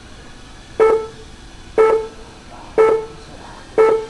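Race-timing system beeping a countdown: four short electronic beeps of the same pitch, one a second, signalling the end of the race.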